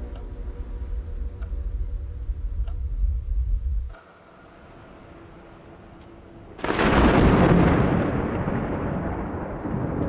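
Monsoon thunderstorm: a low rumble that cuts off about four seconds in, then a sudden loud thunderclap about two-thirds of the way through that rumbles away slowly.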